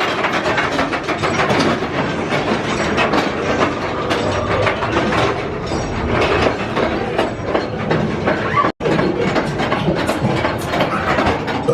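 Roller coaster train rattling and clattering along its track, a dense run of quick clicks and knocks.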